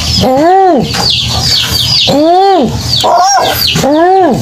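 A tuwu bird calling: three rising-then-falling hoots, each about half a second long, repeated roughly every two seconds. Higher, quick falling chirps from another bird fill the gaps.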